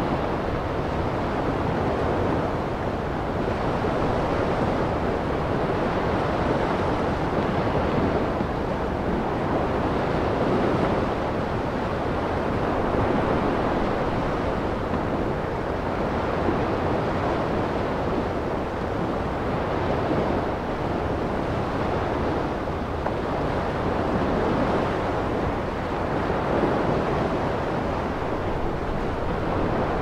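Ocean surf: small waves washing onto a sandy beach in a steady rushing wash that rises and falls gently, with no single loud crash.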